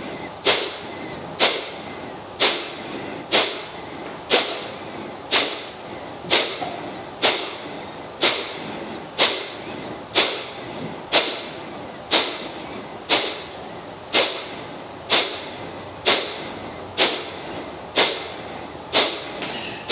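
Kapalabhati breathing: sharp, forceful exhalations pushed out through the nose by the abdomen, one short puff about once a second, evenly spaced.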